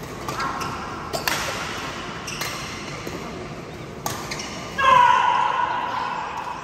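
Badminton rackets striking a shuttlecock during a doubles rally: sharp clicks a second or two apart, echoing in a large hall. About two-thirds of the way through, a player's loud shout, the loudest sound, falling in pitch and dying away over about a second.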